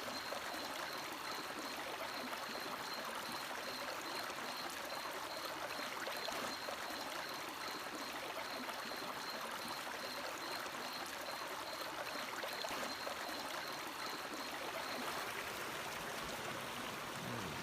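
River water flowing, a steady rushing and babbling. A faint, high, evenly pulsing chirp runs alongside until near the end.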